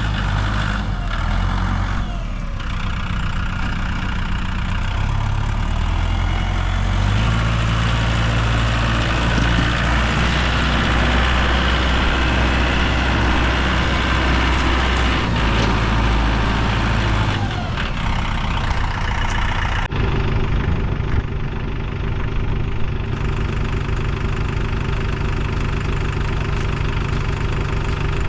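Tractor engine running steadily, its speed shifting a couple of times, with an abrupt change in the sound about twenty seconds in.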